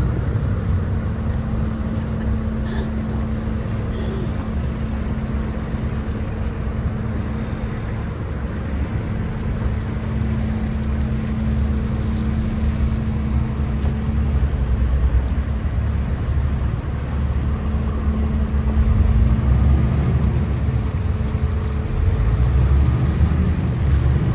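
Car ferry's engines running steadily under way: a deep low rumble with a steady hum over it.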